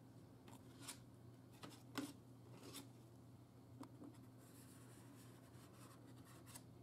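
Faint scraping and a few light clicks of a spreader working excess epoxy off the repaired plastic mount of a car spoiler, over a low steady hum.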